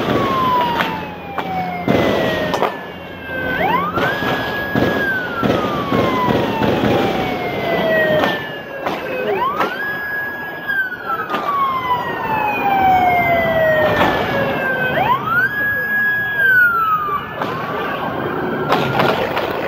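Police siren wailing in a repeating cycle about every five to six seconds: the pitch rises quickly, holds briefly, then falls slowly. Several sharp cracks or knocks break in, a few in the first seconds and one near the end.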